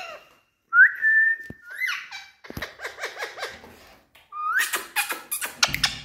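Indian ringneck parakeets whistling and calling: one long held whistle about a second in, then a run of short up-and-down calls, a brief pause, and fast sharp chattering near the end.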